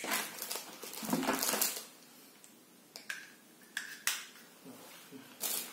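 Handling noise from a small plastic headlamp: rustling and scraping in the first second and a half, then several sharp plastic clicks.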